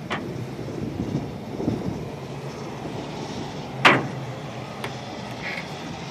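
Steady low background rumble, with one sharp clank about four seconds in from a footstep on the metal gangway grating.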